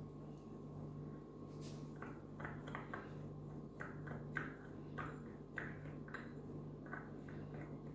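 Steel spoon stirring a damp spice mix in a small ceramic bowl, faint short scrapes and taps against the bowl about twice a second from about two seconds in, over a faint steady hum.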